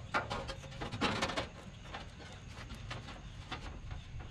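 Scattered light knocks and rattles of a heat pump's metal top panel and wire fan guard being handled and set down onto the outdoor unit's housing, the loudest clatter about a second in.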